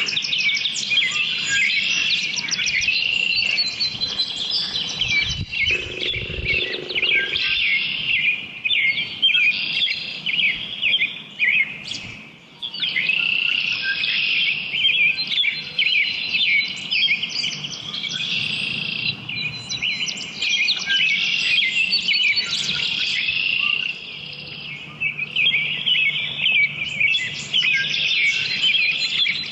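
Early-morning chorus of many songbirds singing and chirping over one another, dense and continuous. About six seconds in, a brief low sound lasts a second or so.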